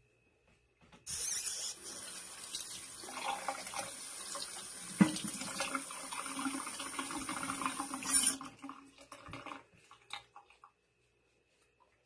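Kitchen sink tap running for about seven seconds while buttery hands are washed, with a sharp knock about halfway through; the tap is then shut off abruptly.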